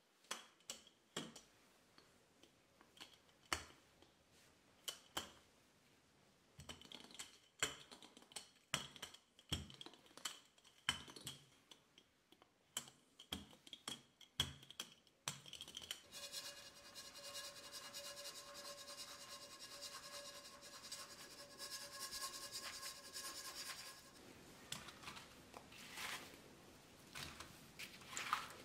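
Wooden rolling pin rolling strudel dough out on a cloth-covered worktop, giving irregular soft clicks and knocks. About halfway through, a steady hum with several fixed pitches runs for about eight seconds, then the clicks return.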